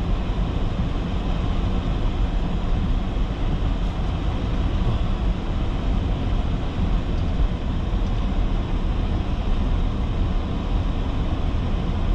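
Range Rover driving along a dirt track, heard from inside the cabin: a steady low rumble of engine and tyres on the dirt.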